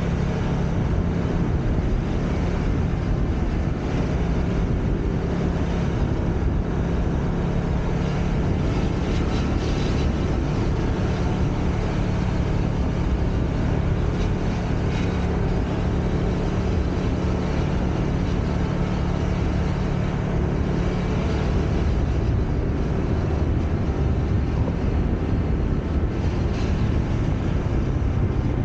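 Honda Click scooter's single-cylinder engine running steadily under way, heard from on board. Its note shifts lower about three-quarters of the way through.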